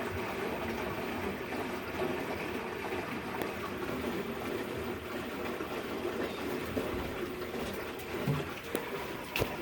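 Samsung top-load washing machine running mid-cycle, with a steady rush of water moving through it and a low hum, and a few light knocks near the end.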